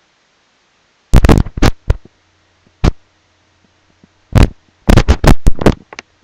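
Handling noise: loud bumps and rubbing right on the microphone, a cluster about a second in, one near three seconds, and a longer run from about four to six seconds in.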